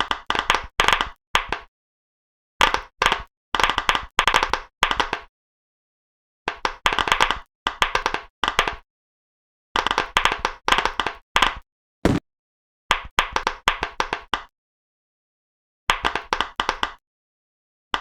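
Pop-it fidget toy bubbles being popped: quick runs of sharp pops, several in each run, broken by short complete silences, with one lone, duller pop about two-thirds of the way through.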